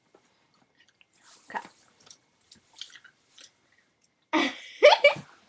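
Faint close-up mouth noises, small wet clicks and smacks typical of someone chewing bubble gum, followed about four and a half seconds in by a short, louder breathy vocal sound.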